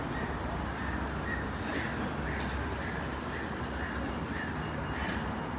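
Level crossing yodel alarm sounding its repeating rise-and-fall warble, about two cycles a second, the warning that the crossing is closed for an approaching train.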